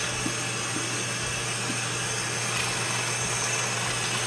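Steady machine whir: a constant hiss with a low hum underneath, unchanging throughout.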